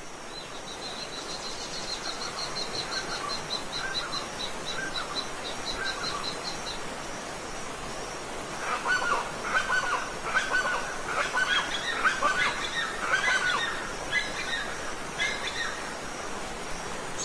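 Steady rush of a waterfall with birds singing over it: a fast, high trill of repeated notes in the first six seconds, then a busier song of quick, varied chirps from about eight to sixteen seconds in.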